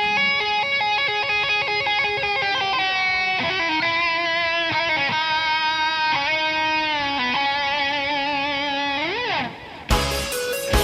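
Background music: a lead electric guitar plays sustained, gliding melody notes. Near the end it breaks into a louder section with drums.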